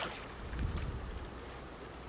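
Outdoor wind noise on the microphone, with a low rumble from about half a second to one second in, and light water sounds from someone wading and working in shallow pond water.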